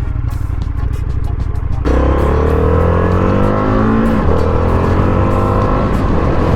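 Indian FTR 1200's V-twin engine accelerating: it runs steadily, then about two seconds in the throttle opens and the engine note climbs in pitch, dips briefly at a gear change about four seconds in, and climbs again.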